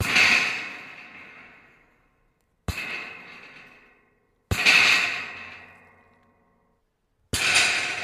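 Pieces of scrap metal rattling and clattering in four separate bursts, each starting suddenly and dying away over a second or two with a faint metallic ring.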